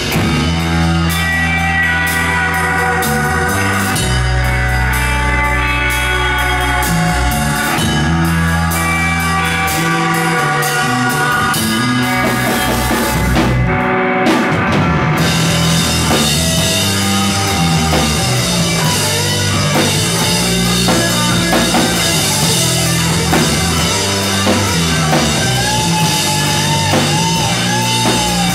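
Rock band playing live: drum kit and distorted electric guitars through Marshall amplifier stacks. The cymbals drop out for about two seconds just past the middle, then the band comes back in fuller and denser, with a wavering guitar note near the end.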